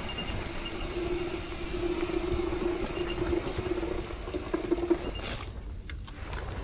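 Mountain bike rolling down a dirt singletrack: tyre noise and the rattle of the bike over the trail, with a steady hum that stops about five seconds in, followed by a few sharp clicks and knocks.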